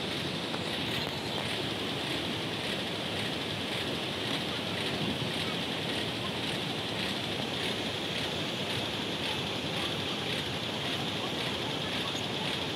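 Steady rushing of a fast-flowing mountain river.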